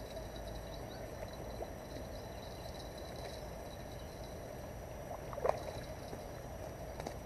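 Steady rushing of a high, fast-flowing river. About five and a half seconds in there is a short thump as the catfish is landed on the bank.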